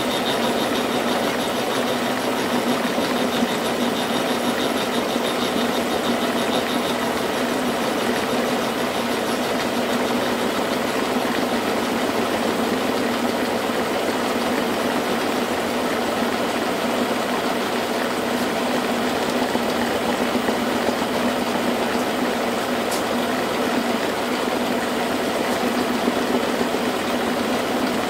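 Old milling machine running steadily under a cut in metal, its motor and gearing making a constant hum. A thin high whine fades out about six seconds in.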